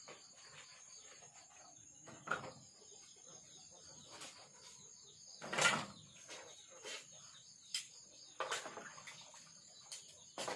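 Dishes being washed by hand in a basin: scattered clinks and knocks of crockery and pans, with one louder clatter about halfway through.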